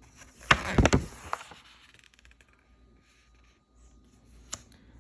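A page of a picture book being turned: a quick burst of paper rustling and sharp clicks about half a second in, lasting about a second, then one single click near the end.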